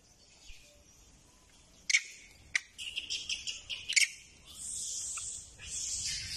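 Baby macaque giving a quick run of high-pitched squeaks and then two longer, hoarse screeches, beginning about two seconds in. A few sharp clicks fall among the calls.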